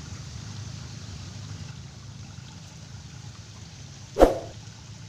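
Steady low murmur of shallow stream water, then one sharp plop in the water near the end.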